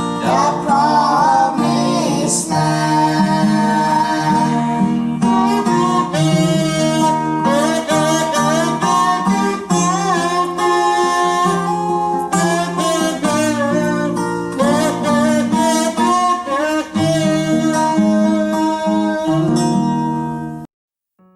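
A song sung to strummed acoustic guitar, which stops abruptly near the end.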